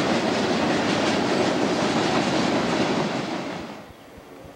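CSX freight train cars, covered hoppers and boxcars, rolling past close by with a steady rumble of steel wheels on rail and some clicking over the rail joints. The sound drops away abruptly near the end, leaving only faint background.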